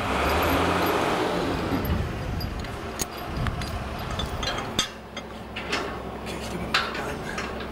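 An engine hums steadily and low, with a rush of noise over the first couple of seconds. From about three seconds in come scattered metallic clinks and knocks from a crane's lifting chain and rigging.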